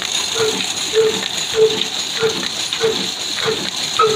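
Old 'kala' black diesel engine of about 22–24 horsepower running steadily, turning its heavy flywheel and belt-driven pulley. It beats slowly and evenly, about one and a half beats a second, over a steady mechanical hiss.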